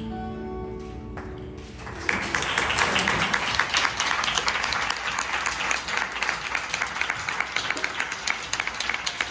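The last notes of a twelve-string acoustic guitar ring out and fade. About two seconds in, an audience starts applauding, and the clapping carries on steadily.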